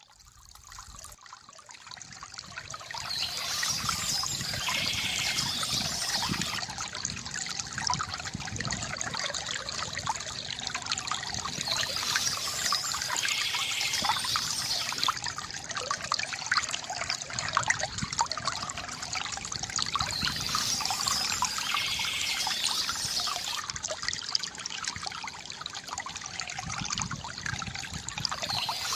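Water trickling and pouring steadily from a bamboo fountain, fading in over the first few seconds from near quiet.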